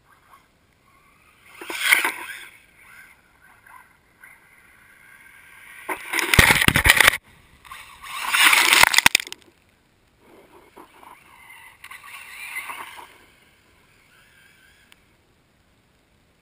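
ECX Revenge 1/8-scale electric buggy running in bursts of throttle, its motor whining while the tyres churn wet snow and slush. The loudest burst comes around six to seven seconds in.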